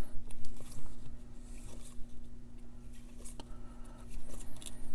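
Baseball cards in plastic sleeves being handled and shuffled between the hands: light rustling and crinkling of the plastic with scattered small clicks and taps.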